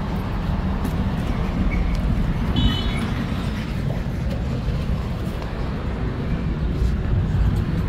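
Steady low background rumble with no speech, and a short high tone about two and a half seconds in.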